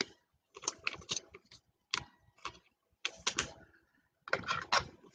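Football trading cards being flipped through and laid down on a table: short, sharp clicks and flicks of card stock in small clusters about once a second.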